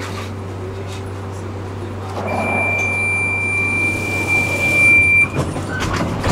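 Prague tram standing at a stop with a steady low electrical hum. About two seconds in, a single high, steady warning tone sounds for about three seconds, the signal that the doors are closing, and the doors then shut with a few knocks near the end.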